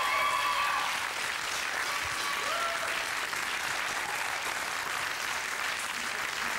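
Studio audience applauding, a dense, steady clapping that eases slightly after about a second.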